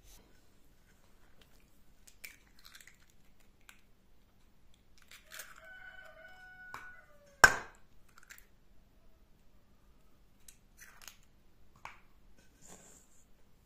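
An egg struck once, sharply, against the rim of a metal mixing bowl to crack it open, about halfway through, with faint taps and hand rustles around it and a brief squeak just before.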